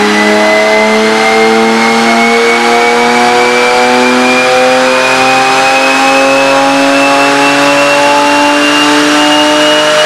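Porsche Cayman S's flat-six engine running hard on a chassis dynamometer, its revs climbing slowly and steadily through one long dyno pull. Loud throughout, with the rush of the tyres and rollers under it.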